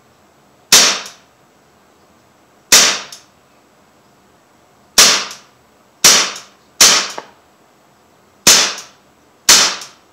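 Umarex Legends M712 CO2 blowback BB pistol firing seven single shots on semi-auto, each a sharp crack, spaced irregularly about one to two seconds apart.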